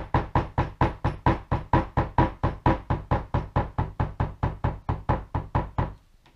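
Rubber mallet tapping a metal beveler stamp into cased leather on a plastic block: a steady run of light strikes, about four or five a second, as the tool is walked along a swivel-knife cut to bevel its edge. The tapping stops near the end.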